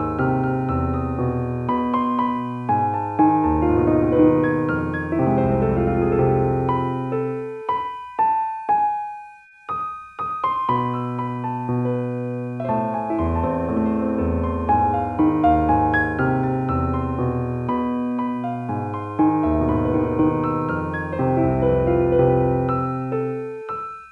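Slow, relaxing piano music with sustained chords over low bass notes. It thins to a few single notes about eight seconds in, then fills out again.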